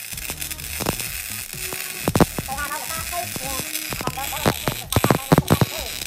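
Hobart Ironman 230 MIG welder's arc laying a bead on steel: a steady crackling sizzle with sharp spatter pops, the pops coming thicker and louder a little past the middle.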